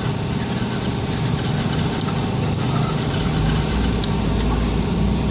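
Yamaha Jupiter MX's single-cylinder four-stroke engine running steadily at idle after catching on the electric starter, with a deeper low hum swelling from about three and a half seconds in.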